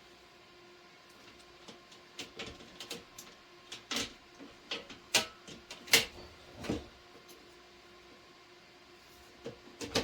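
Plastic box fan parts knocking and clicking against each other as they are handled and fitted together: a cluster of sharp knocks in the middle and a couple more near the end.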